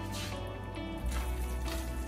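Background music with sustained notes and a bass line that comes in stronger about a second in. Beneath it, a silicone spatula stirs thick bell pepper gravy in a nonstick pan, making two short wet scraping strokes.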